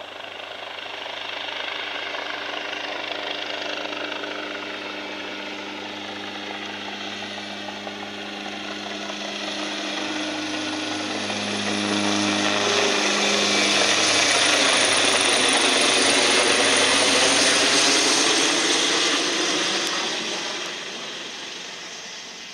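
Police helicopter taking off and climbing overhead: steady rotor and turbine noise with an even low rotor beat. It grows louder to a peak about two-thirds of the way through as it passes overhead, then fades near the end.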